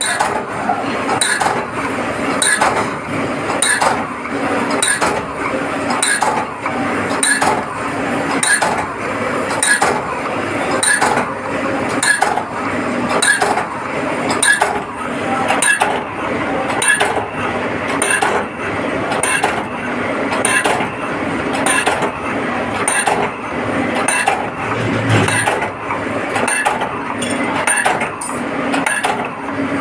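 Slotting machine running, its ram reciprocating up and down with a sharp metallic clink at each stroke, about once a second, over a steady machine noise.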